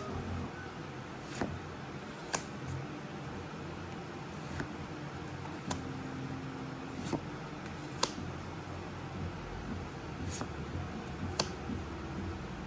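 Pokémon trading cards being handled and flipped through one at a time: soft handling noise with a sharp click every second or two as each card is slid over the next, above a low steady hum.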